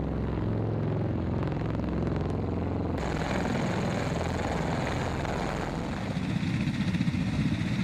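V-22 Osprey tiltrotors flying low overhead, their rotors making a steady deep drone. About three seconds in it changes abruptly to a broader rushing noise, and from about six seconds a rapid low beating of rotors comes in as an Osprey sets down.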